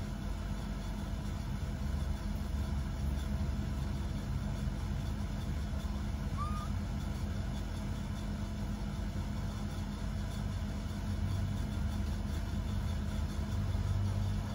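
Steady low background rumble with a faint hum. A faint, short rising squeak sounds about six and a half seconds in.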